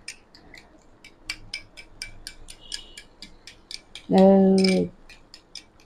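A metal spoon clicking rapidly against a small glass bowl as its contents are stirred, light even clicks about five a second.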